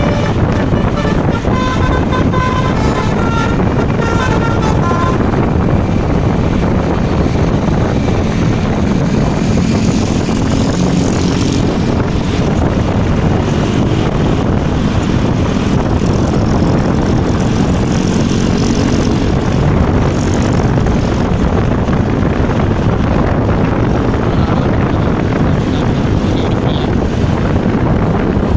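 Basuri V3 telolet bus horn playing a tune of short held notes for about the first five seconds, then a bus engine running loudly with a heavy rushing noise as the bus passes close.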